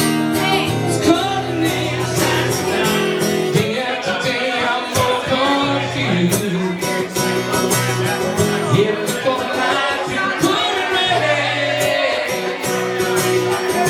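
Live band music with electric guitar, bass and drums, and a male singer's voice at times.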